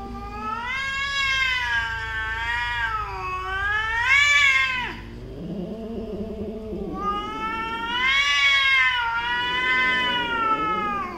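Two domestic cats yowling at each other in an aggressive standoff: two long, wavering yowls, the first rising sharply at its end, with a lower, rougher call in between.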